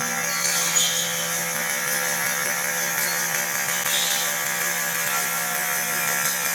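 Full-metal HPA airsoft minigun firing one long continuous burst: its electric motor whirring and the rapid air shots merge into a single steady, even buzz.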